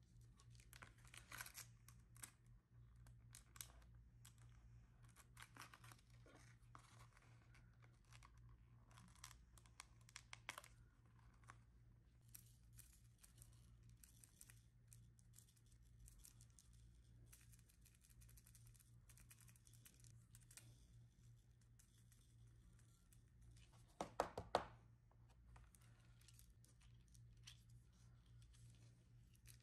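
Faint scratching, crinkling and peeling of paper while a coloured-sand picture is worked by hand, over a low steady hum. One short louder crackle comes late on.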